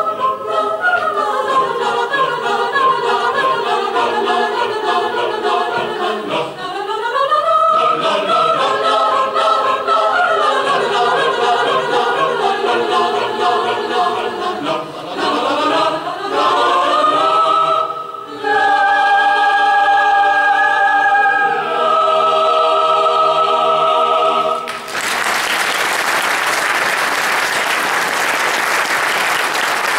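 Mixed chamber choir singing held chords with upward glides, closing on a long final chord. About 25 seconds in, the singing stops and the audience bursts into applause that continues.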